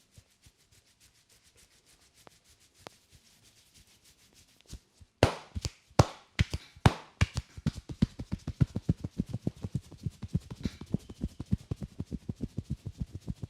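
A barber's hands massaging a head: faint quick rubbing at first, then a few sharp slaps about five seconds in, followed by a fast, even run of dull thuds, about five a second, as the head is tapped in a percussive massage.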